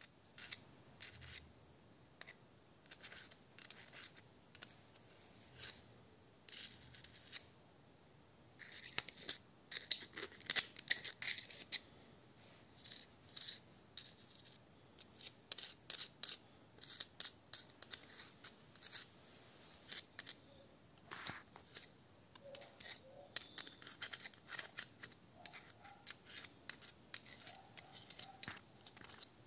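Metal tool scraping and clicking against a ball bearing on a pneumatic drill's shaft as grease is packed in between the balls. It is an irregular run of short scrapes and clicks, loudest about ten seconds in.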